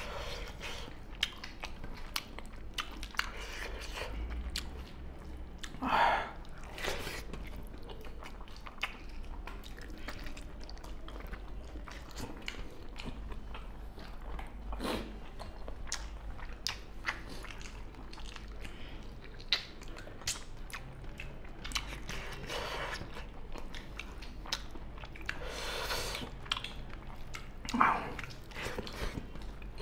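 Close-up chewing and mouth sounds of people eating pork curry and rice by hand, with many small clicks and taps of fingers and food on steel plates. Now and then a louder, brief noisy sound breaks in, about six seconds in and again near the end.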